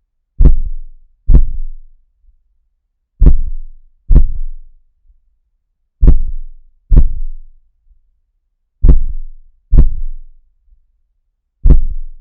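Heartbeat sound effect presented as a puppy's heartbeat: deep lub-dub thumps in pairs, each pair about three seconds apart, steady and even.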